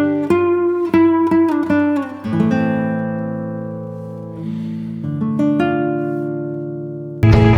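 Background music on plucked acoustic guitar: picked notes, slowing into long ringing chords that fade, then a louder, fuller section cuts in near the end.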